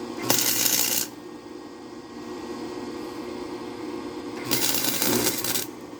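Two short runs of electric arc welding on steel, each a dense crackle lasting about a second, the first just after the start and the second near the end, with a steady low hum between them.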